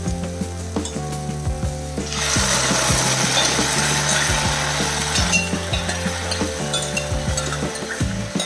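Cooked dal being added to a hot pan of sautéed ridge gourd and onion, setting off a loud sizzle from about two seconds in that dies back after about three seconds, with light spoon clinks on the pan.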